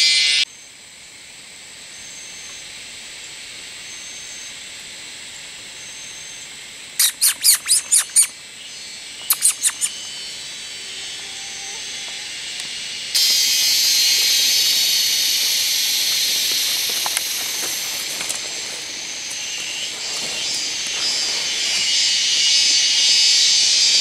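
Jungle insects and animals. A loud insect trill cuts off in the first half second. A run of six quick, sharp calls comes about seven seconds in, and four more a couple of seconds later. About thirteen seconds in, a loud, steady, high buzzing hiss of cicada-like insects starts suddenly and keeps going.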